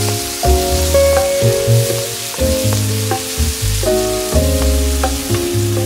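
Food sizzling as it fries in a pan, a steady hiss that cuts off suddenly at the end. It sits under background music with a bass line and keyboard notes.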